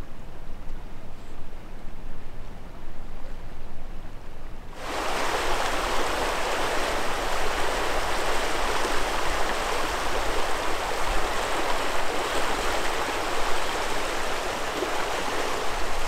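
A quiet low rumble, then, about five seconds in, a steady rush of fast river water over gravel that starts suddenly and holds at an even level.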